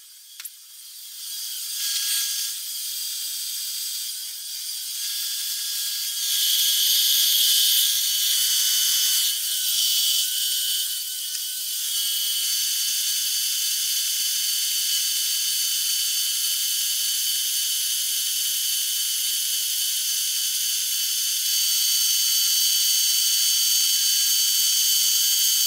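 Marvel metal-cutting bandsaw running through thick-wall steel tubing: a steady whine and hiss made of several fixed high tones, thin with no low end, getting louder about six seconds in.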